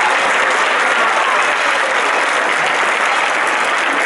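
A large crowd applauding steadily and densely, with some voices mixed in.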